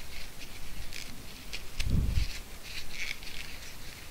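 A wad of tissue rubbing and scrunching against the inside of a plastic TV-remote shell, wiping liquid out of it, with short scratchy rustles and small clicks. A dull low thump of handling comes about two seconds in.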